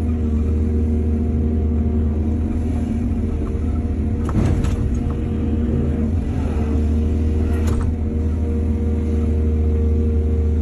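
Excavator diesel engine running steadily, with sharp metallic clanks about four seconds in and again near eight seconds.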